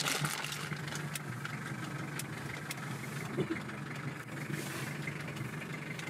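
Pickup truck engine running steadily at low revs, heard from inside the cab, with faint scattered ticks and rattles.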